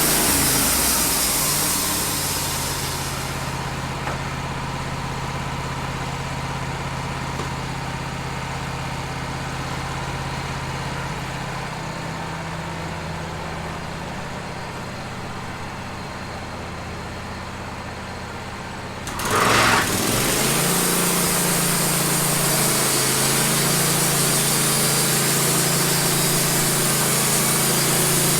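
Wood-Mizer LT15 bandsaw mill: the cutting hiss dies away in the first few seconds and the engine runs more quietly for a while, then about two-thirds of the way through it revs up sharply and the saw runs at full speed again with a steady hiss.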